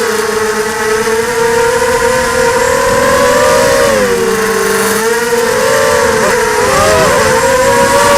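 ZMR 250 racing quadcopter's brushless motors and propellers whining. The pitch dips and rises partway through, and the separate motor tones wobble apart near the end as the throttle and individual motor speeds change during manoeuvres.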